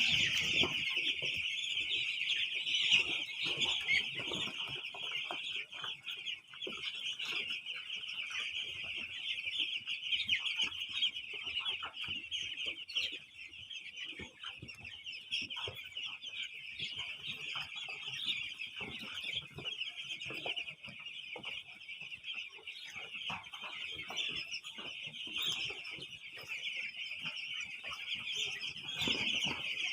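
A large flock of chickens clucking and calling all at once, a dense, continuous chatter of many overlapping calls.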